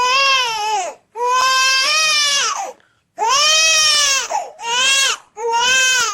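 Infant crying, generated by the ThinkSound audio model: about five loud, high-pitched wails, each rising and then falling away, with short breaths between them.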